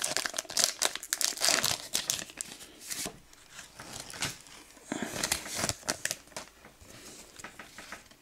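Foil Pokémon booster pack being torn open and its wrapper crinkled, in irregular crackles that are thickest in the first three seconds and thin out after.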